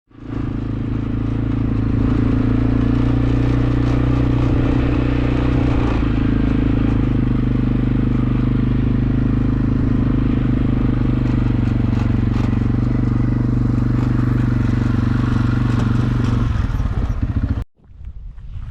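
A vehicle engine running steadily, its pitch stepping down slightly about six seconds in; the sound cuts off abruptly near the end, leaving wind noise on the microphone.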